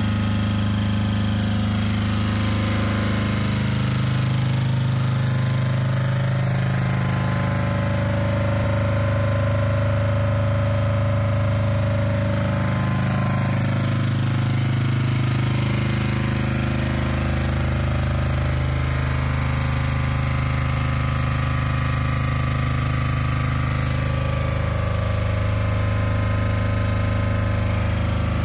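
Energy EY12MDE-SA single-phase generator set running steadily inside its sound-proofing canopy, a constant low engine hum whose tone shifts slightly now and then.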